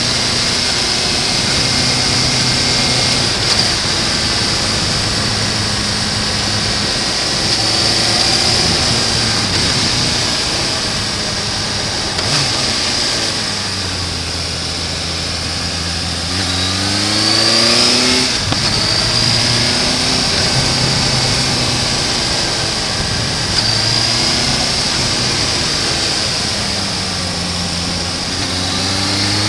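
Suzuki GSR750 motorcycle's inline-four engine running at steady part throttle under the rush of wind. About halfway through the revs drop low for a couple of seconds as the bike slows for a tight bend, then rise sharply as it accelerates out and settle again.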